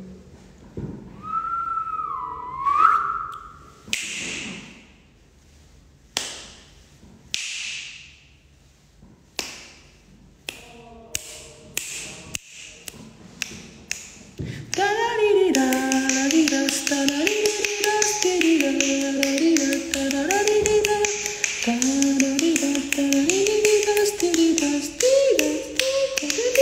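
A man whistles a short sliding note, then taps a few times. About halfway through he starts humming a tune in steady held notes, over a fast run of taps and a hiss.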